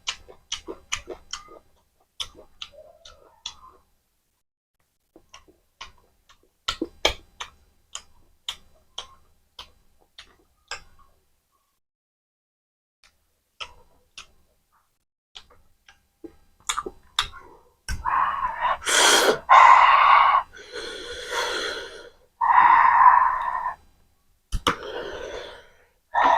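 Close-miked eating sounds: sharp, irregular chewing clicks and wet mouth noises for the first ten seconds or so. These give way to a run of louder, longer noisy mouth and breath sounds in the second half.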